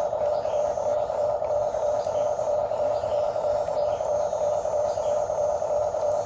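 Electric motors of a remote-control excavator whirring steadily, a constant mid-pitched hum with no change in level.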